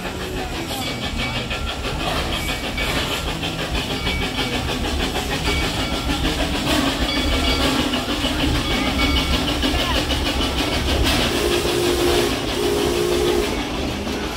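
Propane-fired narrow-gauge 4-4-0 steam locomotive and its passenger cars running past, the wheels on the rails and the engine's noise swelling louder toward the middle. Two short steady tones sound near the end.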